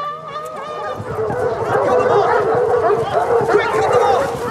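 A pack of hunting hounds yelping and baying all at once in a dense clamour. It grows louder about a second in.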